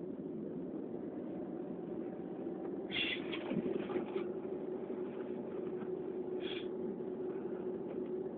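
A steady background hum runs throughout. Over it come a few short, breathy sniffs: a group about three seconds in and one more at about six and a half seconds, as from a person with an allergy attack between sneezes.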